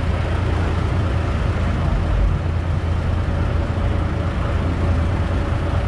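Cross-river ferry's engine running steadily: a low, even drone with a faint steady hum above it.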